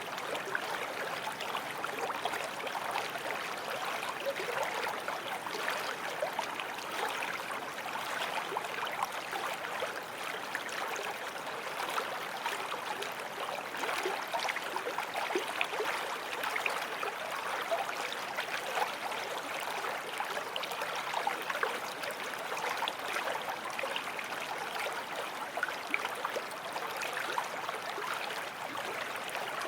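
Forest stream flowing over stones, a steady babble of running water with small splashes and gurgles throughout.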